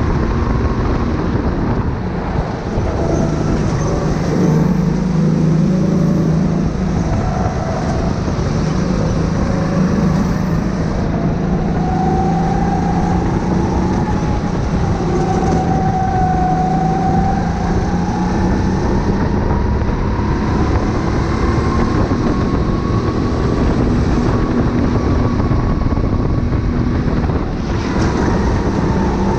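Kart engine heard from on board at racing speed, its pitch rising and falling as the kart speeds up and slows for corners.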